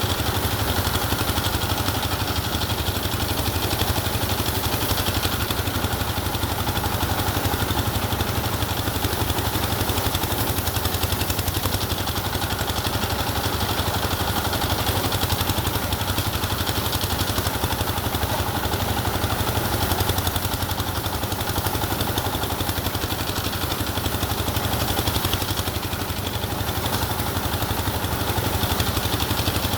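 An engine running steadily at a constant speed, with a low, even hum and no change in pitch or level.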